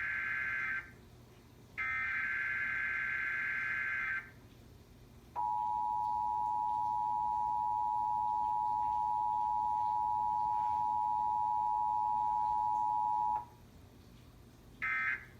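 Emergency Alert System relay over a TV broadcast: SAME header data bursts screech twice, then the eight-second two-tone attention signal (853 and 960 Hz) sounds steadily and stops. It is followed after a short pause by a brief end-of-message data burst, with no voice message in between, as in this faulty monthly test sent without a message.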